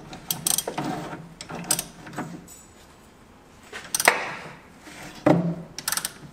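Hand ratchet clicking in several short bursts as a suspension nut above a coil spring is turned, with a wrench holding the bolt; the sharpest click comes about four seconds in.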